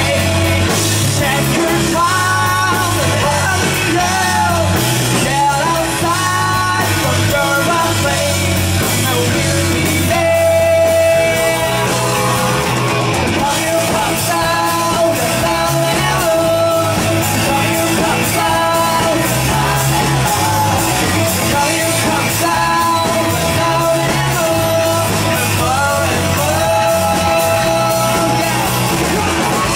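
Rock band playing a song live, a lead voice singing over drums, bass and guitar at a steady, loud level.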